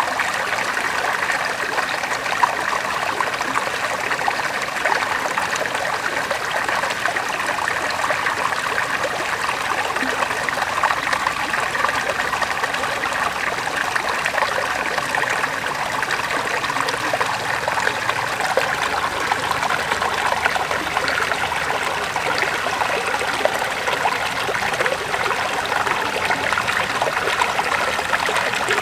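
River water flowing steadily over rocks, a continuous babbling rush with fine splashy trickling.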